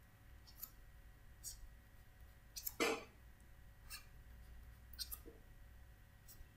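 Faint, scattered taps and clicks of a pen stylus on a writing tablet, about half a dozen short ticks with a louder one near the middle.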